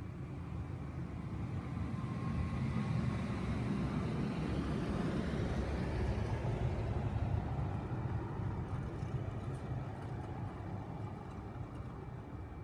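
A pickup truck driving through a parking lot, its engine and tyres growing louder as it passes close and then fading as it moves away.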